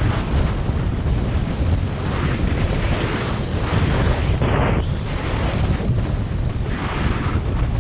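Wind buffeting a camera microphone while kitesurfing: a loud, continuous rumble with gusty surges, about four and a half seconds and seven seconds in.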